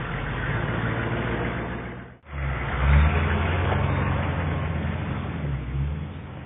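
Dubbed truck engine sound effect, running and revving as the vehicles pull away. It cuts out for a moment about two seconds in, comes back louder, and fades toward the end.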